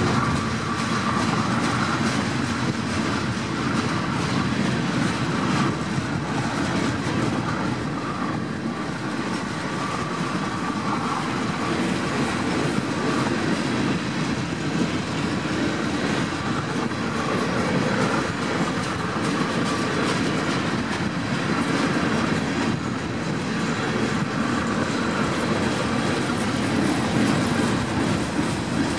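Freight cars (tank cars and covered hoppers) of a passing freight train rolling by: a steady rumble of steel wheels on the rails, with clicks as the wheels cross the rail joints.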